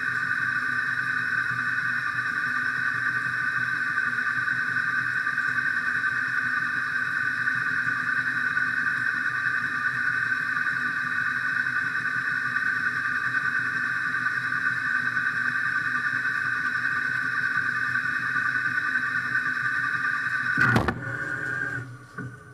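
CNC machine running with a steady high-pitched whine. A single sharp knock comes near the end, after which the sound dies away.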